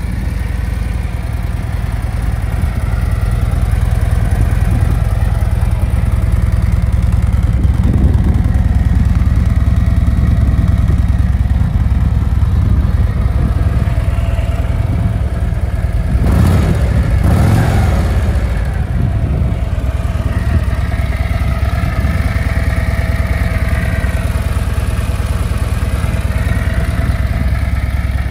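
Harley-Davidson Road Glide's Milwaukee-Eight 117 V-twin idling steadily, with a brief rush of noise over it about two-thirds of the way through.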